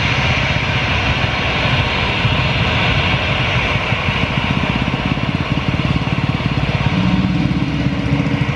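Motorcycle engines idling close by, a fast low putter, with one growing louder near the end. Behind it runs a steady hiss, from the airliner's jet engines running on the runway.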